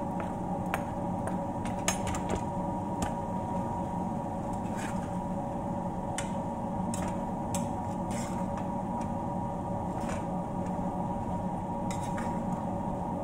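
A metal spoon clinking and scraping against a frying pan as sliced peppers and dried fish are stirred, with scattered sharp clicks over a steady background hum.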